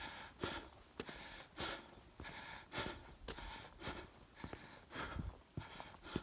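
A hiker panting hard while walking quickly uphill, with quick rhythmic breaths about two a second. Soft footsteps on bare sandstone come in between the breaths.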